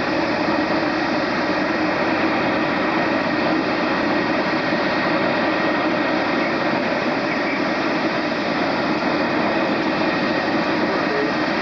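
de Havilland Vampire's single centrifugal-flow turbojet running at low taxi power: a steady jet rush with a thin, high whine.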